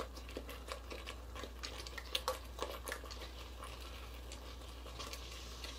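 Faint pouring and handling: heavy cream poured from a carton into a plastic measuring cup, with light scattered clicks and taps over a low steady hum.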